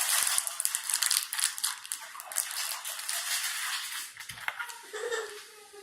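Plastic packaging crinkling and rustling as it is handled, a dense crackle that is loudest at first and fades over the last few seconds.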